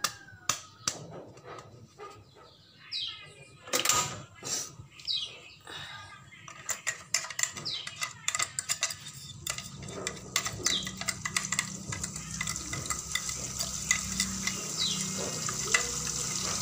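A spoon clinks and scrapes against a blender jar and an aluminium wok as blended chilli paste is scraped into hot oil. From about halfway the paste starts frying, with a sizzle that grows steadily louder under the stirring scrapes. A few short bird chirps come through in the background.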